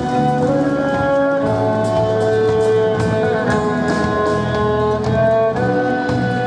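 Live band music: an electric violin bowing a melody of held notes over drums with light cymbal hits.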